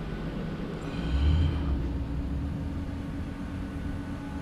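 Steady low outdoor rumble with a faint steady hum, swelling briefly about a second in.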